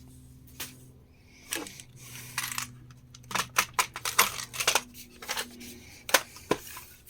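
Small metal hardware such as screws, nails and drill bits being rummaged through and dropped, giving many short, irregular metallic clicks and clinks.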